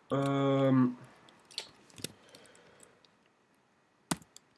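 A man's voice holding one steady, wordless note for about a second, then a few single sharp computer keyboard key clicks spread over the next three seconds.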